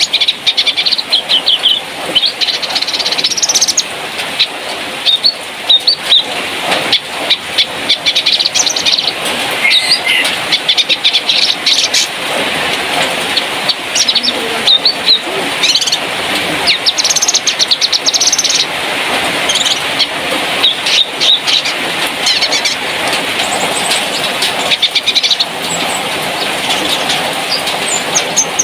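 Cucak kinoi, a Sumatran leafbird, singing a fast, varied song of chirps and short trills without a break, over a steady background hiss.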